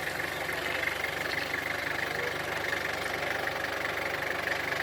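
Engine idling steadily, with a steady high hiss over it.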